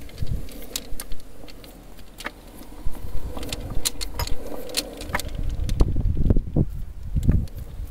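Scattered metallic clicks and clinks over low thumps and rumble, as from handling steel parts of a truck rear axle.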